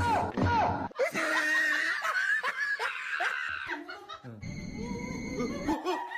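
A person laughing over background music.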